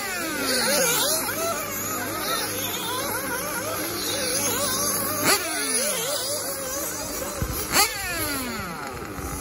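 Several eighth-scale nitro off-road buggy engines revving up and down as they lap the track, a high buzzing that rises and falls. Cars pass close by twice, past the middle and near the end, each going by loudly with its pitch dropping steeply.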